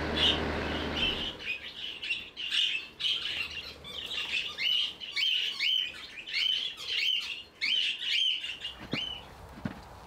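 A flock of budgerigars chattering: rapid, overlapping chirps repeated over and over. A fan heater's steady low hum is under the first second, and a few soft thumps come near the end.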